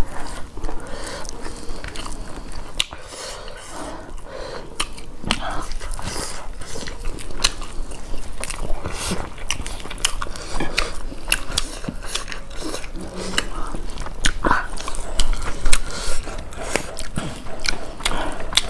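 Mouth sounds of two people eating rice and beef curry with their hands: wet chewing and lip smacks in a fast, irregular run of short clicks.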